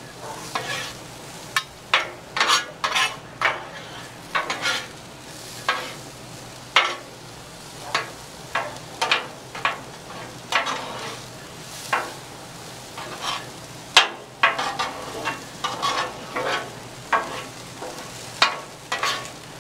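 Metal spatulas scraping and clacking on the steel top of a Blackstone flat-top griddle, irregular strokes about once or twice a second as corn kernels are mixed, over a steady sizzle of the corn frying.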